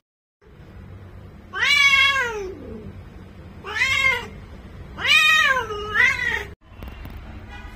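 Bengal cat in heat calling: three long meows, each rising and then falling in pitch, the last one drawn out with a second rise near its end.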